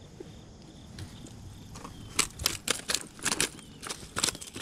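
Loose shoreline stones clattering in quick, irregular clicks and knocks, starting about halfway in, as a just-landed bass is handled and set down on the rocks.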